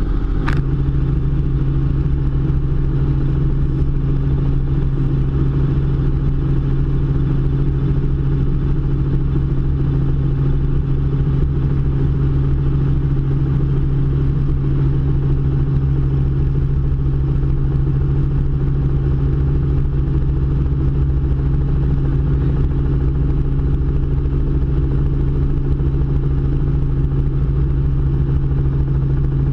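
Robinson R44 helicopter in cruise, heard from inside the cabin: a loud, steady drone of its six-cylinder Lycoming piston engine and rotors with a constant low hum. A brief click sounds about half a second in.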